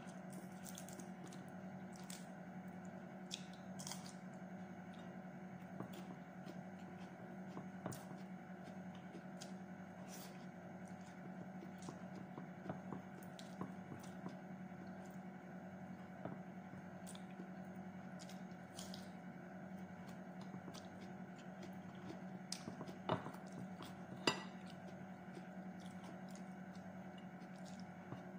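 A person eating with her fingers: scattered soft clicks and smacks of chewing and of fingers scooping food on a ceramic plate, with two sharper clicks a little before the end. A steady low hum runs underneath.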